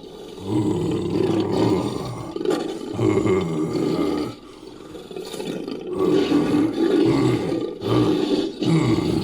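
Made-up monster roars, built from a human voice layered with film and game creature sound effects: a run of low, gravelly roars, each a second or two long, with short breaks between them.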